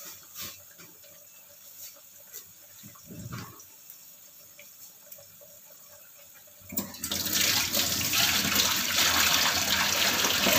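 Water running from a kitchen tap, turned on suddenly about two-thirds of the way in and running steadily for about four seconds, after a few light clicks and knocks.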